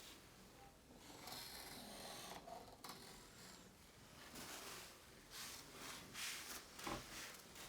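Faint rustling and rubbing noises, coming and going, with a short soft knock about seven seconds in.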